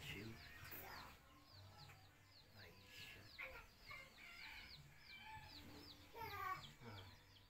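Faint chicken clucking in the background, with a steady run of quick, high chirps repeating several times a second.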